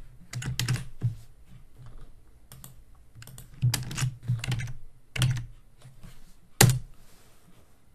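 Computer keyboard keys tapped in short, irregular clusters of clicks, with one sharper, louder click a little before the end.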